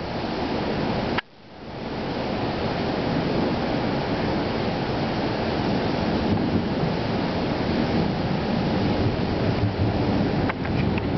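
Steady roar of a thunderstorm, wind and rain noise on the microphone. It cuts out sharply about a second in, then swells back.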